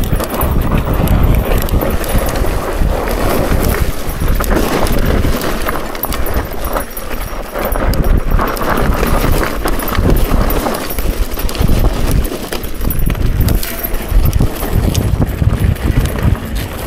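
Mountain bike rattling and clattering as it rolls over a rough, loose gravelly dirt trail, tyres crunching on the gravel, with irregular knocks and a steady low rumble throughout.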